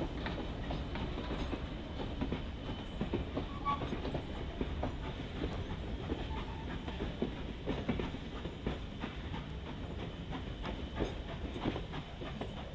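Passenger carriages of a departing train rolling slowly away, their wheels clicking and knocking irregularly over rail joints, over a steady low rumble.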